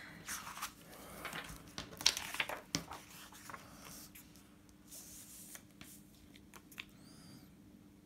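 Paper planner pages rustling and sliding over each other as they are moved about, then a sticker sheet being handled and a sticker peeled from its backing, with light scrapes and taps. The handling is busiest in the first three seconds.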